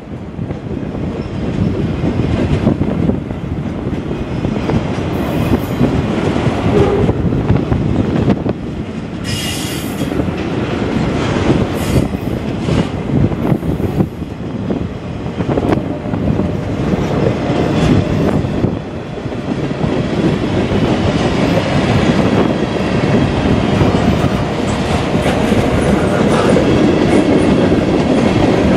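Long freight train's cars rolling steadily past: steel wheels rumbling and clattering over the rail joints, with a few brief sharp high noises about ten seconds in.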